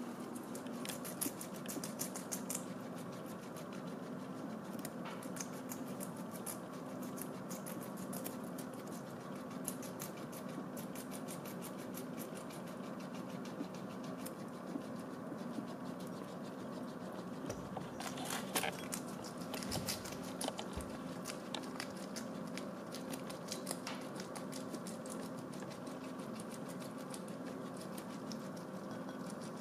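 Guinea pigs chewing hay and vegetables: a rapid, fine crunching and nibbling over a low steady hum, with a brief knock about two-thirds of the way in.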